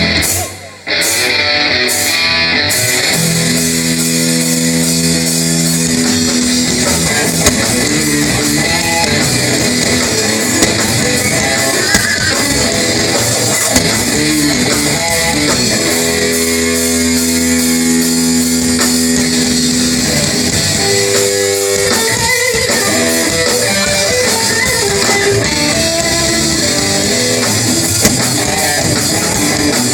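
Rock band playing an instrumental passage live: electric guitars, bass guitar and drum kit, with no singing. The sound drops out briefly about half a second in, then the full band comes back in.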